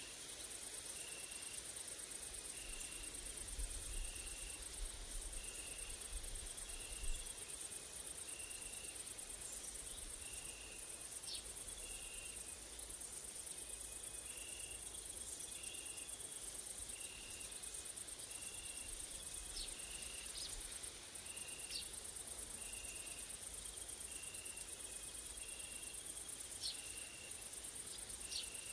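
A chorus of grasshoppers and crickets makes a steady high-pitched buzz, with a short chirp repeating about once a second. There are a few brief bird chips, and a low rumble of wind on the microphone a few seconds in.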